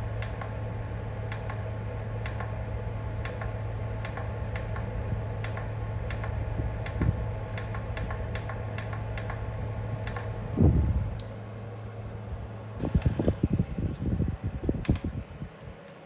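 Fridgemaster FM168 mini tower fan running with a steady hum while its timer control is clicked repeatedly. A louder knock comes about two-thirds of the way in, then a run of knocks and rattles, and the hum dies away near the end.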